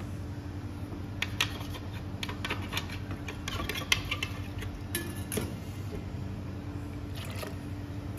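Scattered light clicks and taps of a plastic blender jug and a utensil against a steel pot as the last of the sauce is emptied out, over a low steady hum.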